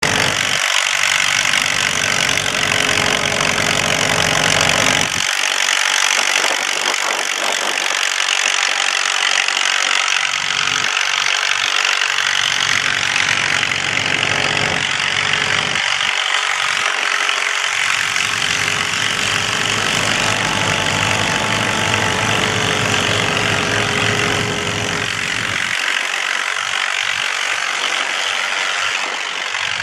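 Allis-Chalmers WC tractor's four-cylinder engine running steadily on the belt, driving a threshing machine, mixed with the thresher's own steady running noise. The low engine sound is strongest for the first five seconds, then weaker while the thresher's noise carries on.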